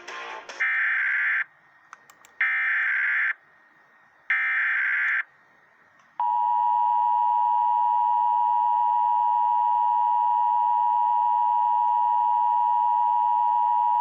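Emergency Alert System broadcast header: three short, screeching digital data bursts (the SAME header that encodes the alert) about a second apart, then the EAS two-tone attention signal, a steady harsh tone held about eight seconds until it cuts off. This opens a required monthly test.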